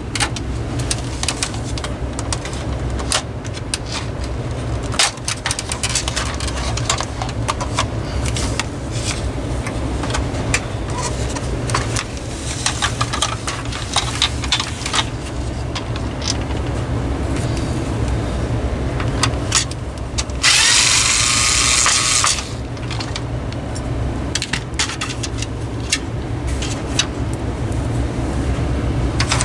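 Plastic housing of a Honeywell HW-690 window fan being handled and pulled apart by hand: repeated clicks, knocks and plastic rubbing over a steady low hum. About two-thirds through, a loud hiss lasts about two seconds.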